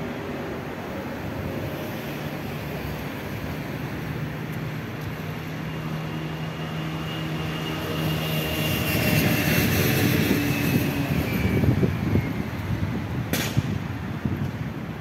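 A motor vehicle passing by: steady engine hum with a faint high whine, growing louder to a peak about nine to twelve seconds in and then fading. A sharp click sounds near the end.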